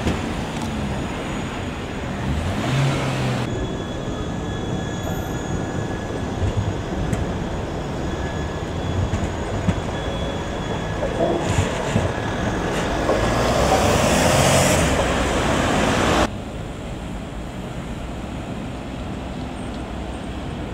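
Tram running on its rails: steady rolling wheel-and-track noise with thin steady whines over it, growing louder and then cutting off abruptly about 16 seconds in, after which a quieter steady rumble remains.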